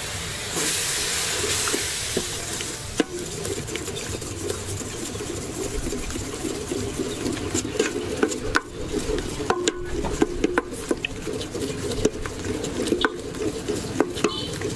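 Melting palm sugar sizzling in an aluminium pot for the first three seconds or so. Then a wooden ladle stirs the liquid, with frequent light knocks and scrapes against the pot.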